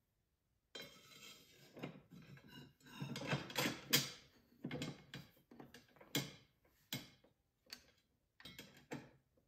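Steel dado blades and chippers of a Freud 8-inch dado set clinking and scraping against each other as they are fitted onto a table saw's arbor. A busy run of metal scrapes and clinks starts about a second in, then gives way to several separate sharp clinks.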